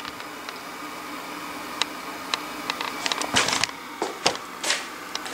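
Steady faint hum from a powered-on vacuum-tube TV set, with scattered light clicks and a few brief rustling scrapes about three to four and a half seconds in.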